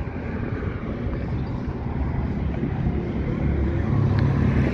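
Outdoor street noise with a ragged low rumble, and a motorcycle engine running past, its hum growing clearer near the end.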